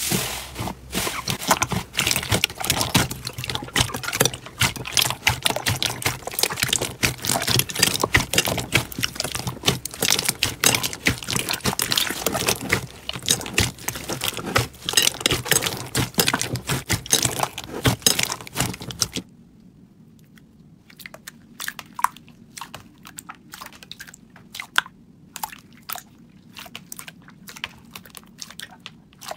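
Hands squeezing and kneading slime: dense crackling and popping clicks, turning to sparser, separate wet clicks over a quieter background about two-thirds of the way through.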